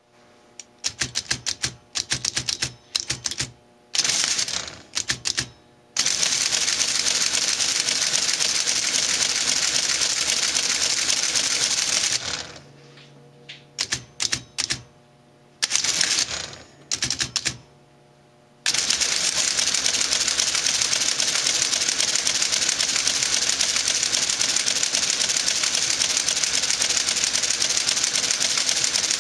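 Friden 1217 electromechanical printing calculator: a string of separate key clicks, then the motor-driven mechanism chattering steadily for about six seconds as it works a calculation. After that come a low hum with more key presses, and about eleven seconds in the mechanism starts chattering steadily again and keeps on.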